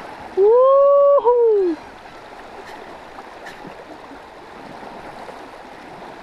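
Steady rush and splash of river water where a hooked dourado fights at the surface on the line. Near the start a man gives one long, drawn-out shout.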